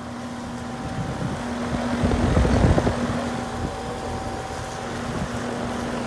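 Lennox 14HPX heat pump outdoor unit running: a steady hum from the compressor and condenser fan, growing louder at the start, with a gusty low rumble of air noise about two to three seconds in.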